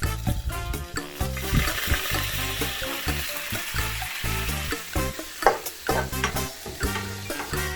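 Egg fried rice sizzling in a hot pan while being stirred, with sharp clacks of the utensil against the pan; the sizzle is loudest in the first half.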